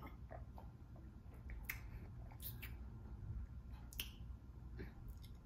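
Mouth sounds of sipping and tasting a fruit drink from a glass bottle: a handful of sharp little lip smacks and tongue clicks, the loudest about four seconds in.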